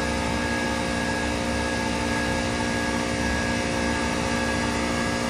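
Daikin AGZ air-cooled chiller running at part load with a single 43 hp single-speed compressor on: a steady machine hum with several steady tones over the even rush of the condenser fans.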